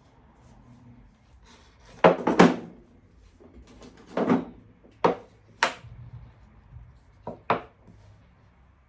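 A series of sharp knocks and clacks of hard objects striking each other, about seven in loose pairs, the loudest pair about two seconds in.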